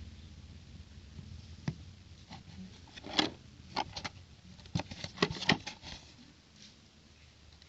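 Hands handling a brick-toy set's box and packaging: a scattering of short clicks and taps, most of them bunched together in the middle.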